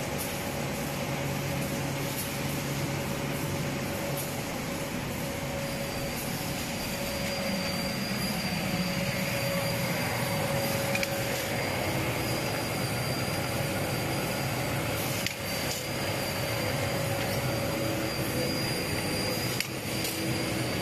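An automatic UV varnishing and calendering machine running: a steady mechanical noise of conveyor belts, rollers and cooling fans, with a thin high whine joining in about six seconds in.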